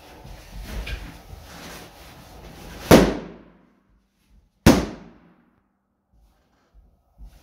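Two latex party balloons bursting as they are pressed, two sharp bangs about two seconds apart, the first about three seconds in.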